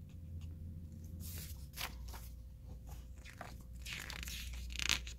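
Soft pen-on-paper scratching and light paper handling, ending with the rustle of a picture-book page being turned near the end.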